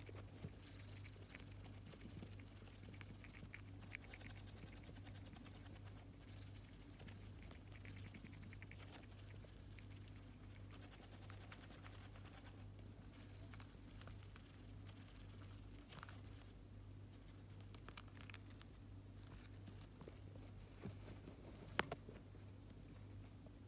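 Faint small clicks and rustles of Roborovski hamsters nibbling broccoli and moving about in paper bedding, over a steady low hum.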